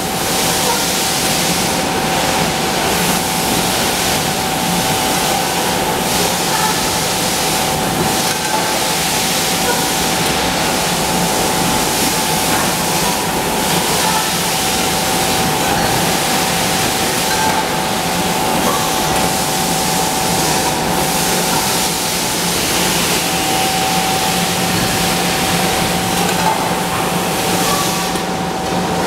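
Steady machinery noise of a running aluminum cookware production line, with conveyor belt and presses, carrying a constant mid-pitched whine.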